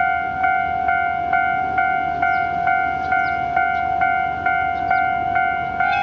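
Electronic Japanese level-crossing warning bell ringing steadily, about two strikes a second. Near the end a KD60 diesel locomotive's horn starts to sound over it.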